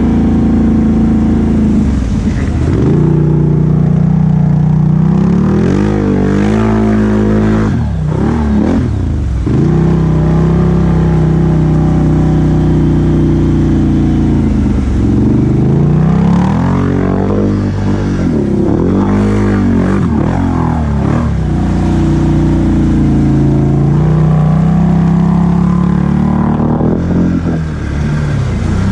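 ATV engine running hard and revving up and down again and again as the machine is ridden, its pitch rising and falling in several quick bursts of throttle with steadier stretches between.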